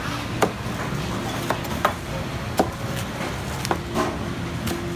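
Knife chopping on a wooden board, about seven sharp, irregularly spaced strokes over a steady background hum.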